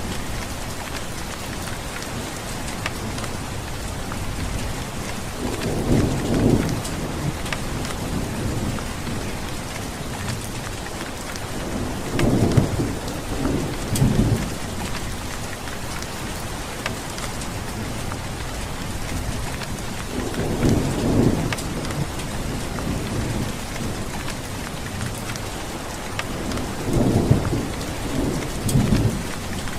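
Steady rain falling, with occasional sharp drop ticks, and low rolls of thunder rumbling four times, each lasting one to two seconds.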